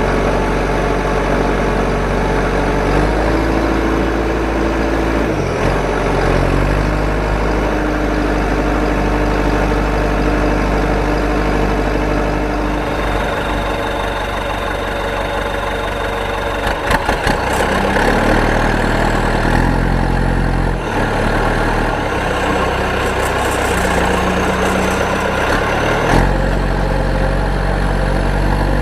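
A vehicle engine running steadily at idle, its pitch jumping abruptly several times.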